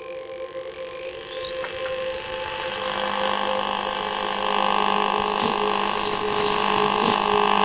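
Ambient soundtrack drone: steady held low tones under a wash of noise that swells gradually louder and cuts off suddenly at the very end.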